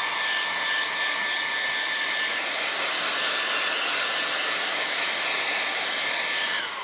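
Small handheld hair dryer running steadily: a rush of air with a high motor whine over it, switched off near the end, the whine falling away as it stops.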